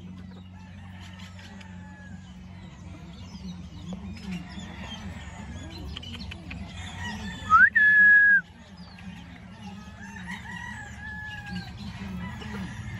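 A flock of gamefowl (pullets and roosters) calling: scattered clucks and crowing over a steady low hum. About eight seconds in comes one loud, short call that rises sharply and then holds steady.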